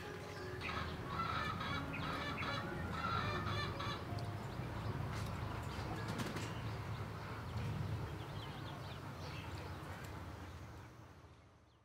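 Free-ranging chickens calling and clucking, with drawn-out, several-toned calls in the first few seconds and a few sharp clicks later; the sound fades out near the end.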